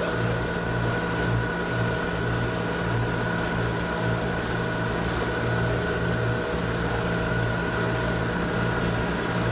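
Motorboat engine running steadily with a low hum that wavers, over the rush of water churned up in its wake.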